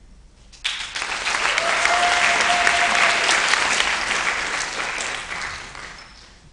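Audience applauding, starting suddenly just under a second in and dying away near the end, with one held tone sounding for about a second and a half in the middle.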